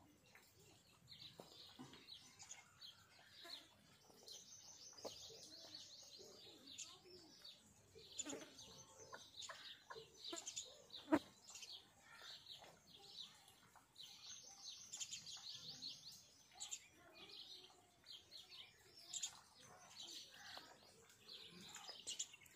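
Faint chirping and twittering of small birds, in quick high trills that come and go. A single sharp click about eleven seconds in.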